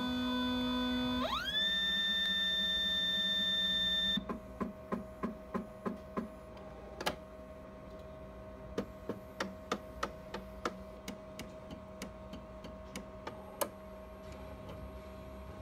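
Agilent 1290 Infinity G4226 autosampler's motors working: a pitched whine that glides up about a second in, holds for about three seconds and stops, followed by a run of irregular clicks and ticks from the mechanism for about ten seconds, over a steady hum.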